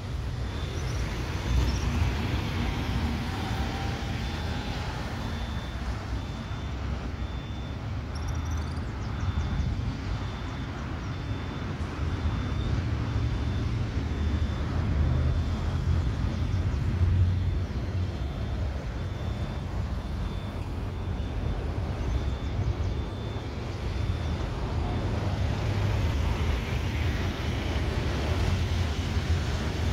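Low, steady rumble of an approaching Boeing 737 MAX 8 jet with its CFM LEAP-1B engines on landing approach, growing somewhat louder near the end as the plane nears.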